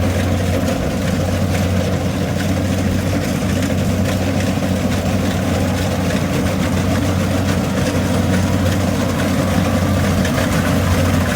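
Kubota rice reaper's engine running steadily with a low, even hum.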